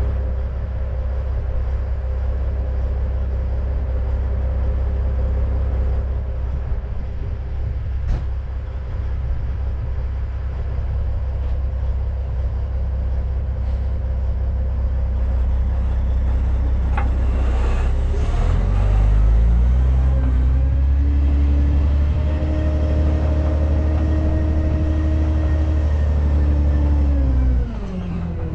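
Dump truck's diesel engine idling with a steady low rumble, then revved up about two-thirds of the way in and held at high revs for several seconds before dropping back sharply near the end, as when the engine is run up to work the hydraulic hoist that tips the dump body.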